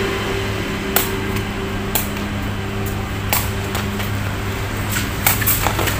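Sepak takraw ball being kicked back and forth in a rally: sharp knocks about a second apart, then a quick run of three near the end, over a steady low hum.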